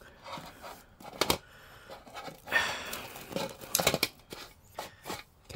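Scissors snipping through a freshly baked soft pretzel: several separate sharp snips spread over a few seconds.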